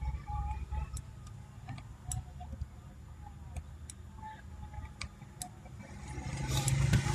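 Light, irregular clicks and ticks of small hand tools on a phone circuit board during soldering work, over a faint low hum. A rustling noise builds near the end.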